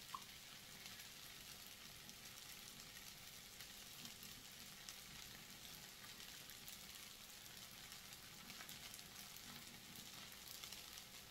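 Fried rice sizzling faintly in a pan, a soft, steady crackle.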